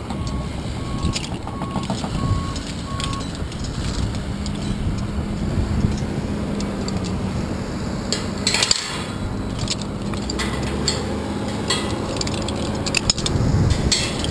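Wind rushing over the microphone, with metal clinks and knocks as a steel lanyard snap hook and the climber's hands meet the steel lattice of the tower, a cluster of them about two-thirds of the way in and again near the end.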